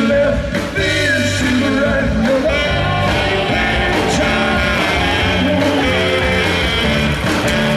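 Live rock band playing, with a lead singer singing over the band.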